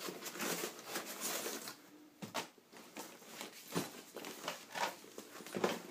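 Soft fabric tool bag being handled and folded: irregular rustling and crinkling of the cloth, with a few light knocks.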